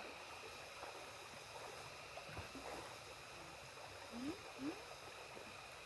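Shallow river running over stones, a faint steady rush of water, with two short faint rising calls about four seconds in.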